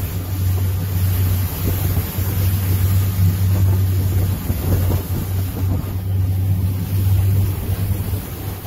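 Motorboat under way: a steady low engine drone, with wind noise on the microphone and water rushing past the hull.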